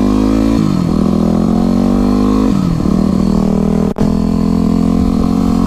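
Yamaha WR250R's single-cylinder four-stroke engine accelerating up through the gears: the pitch climbs, drops at an upshift about half a second in, climbs again, drops at a second upshift about two and a half seconds in, then holds steady at cruising speed. A very brief break in the sound about four seconds in.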